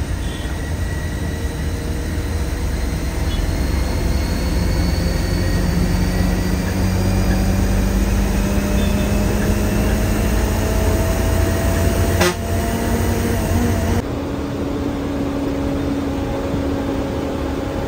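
Cabin noise of an air-conditioned coach bus on the move: low engine and road rumble with a drone that rises slowly in pitch as the bus picks up speed. A sharp click comes about twelve seconds in, and shortly after the sound changes abruptly to a lighter, steady hum.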